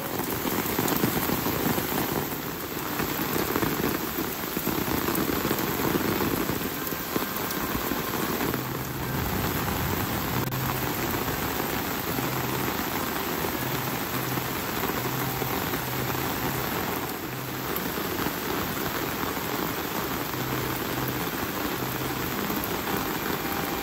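Steady rain falling, an even hiss of rain on surfaces.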